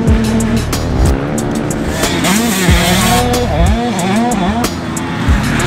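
Motocross dirt bike engine revving, its pitch rising and falling over and over as the throttle is worked.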